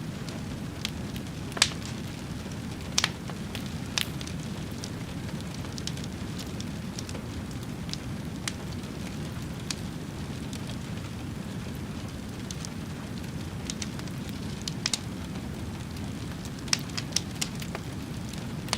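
Fire burning, with a steady low rumble and scattered sharp crackles and pops every second or few.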